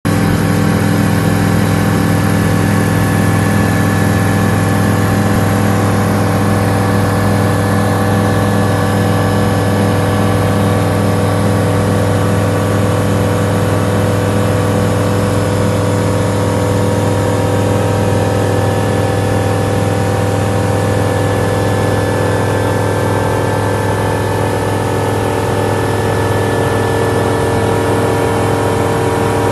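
Flight Design CTLS light-sport airplane's Rotax 912 four-cylinder engine and propeller running steadily in cruise, heard from inside the cabin as a constant hum with a low steady pitch.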